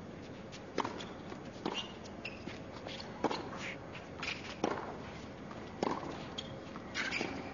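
Tennis rally on a hard court: racket strikes on the ball come about every second and a quarter, mixed with short shoe squeaks, over a hushed crowd.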